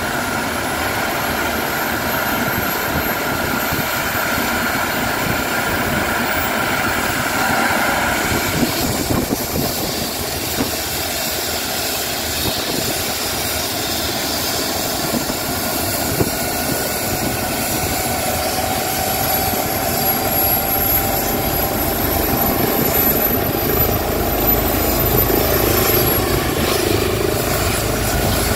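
Airbus H135 air ambulance helicopter on the ground with its turbines running: a steady turbine whine with high whistling tones, growing somewhat louder and fuller in the last few seconds.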